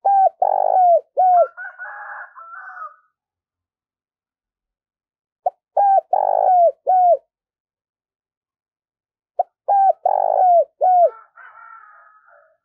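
Spotted dove cooing: three phrases about four seconds apart, each a short note, a longer rolling coo and two clipped notes. A softer, higher rasping sound follows the first and last phrases.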